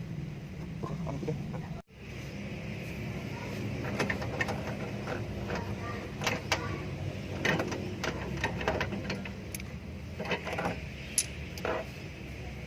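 An engine running steadily, with frequent metallic clinks and taps of hand tools working on it. The sound drops out abruptly for a moment about two seconds in.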